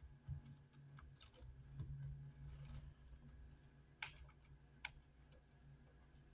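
Near silence: a faint low hum, with two short sharp clicks about four and five seconds in, likely a computer mouse being clicked.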